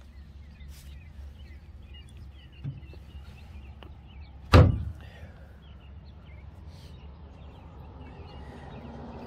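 A live well hatch lid on an all-welded aluminum boat shutting with a single loud thunk about four and a half seconds in, after a lighter knock a couple of seconds earlier, over a steady low outdoor rumble.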